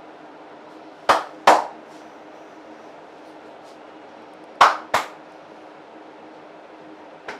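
Two pairs of sharp, loud smacks from a barber's hands striking during a head massage, the first pair about a second in and the second a little past the middle. A faint click comes near the end, all over a steady low hum.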